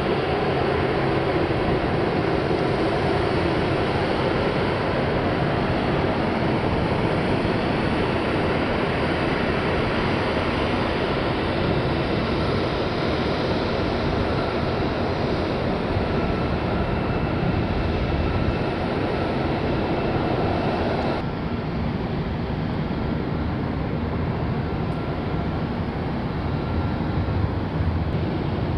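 Steady roar of aircraft noise across a military flight line, with a faint high whine running through it; the sound drops abruptly in its middle and upper range about 21 seconds in.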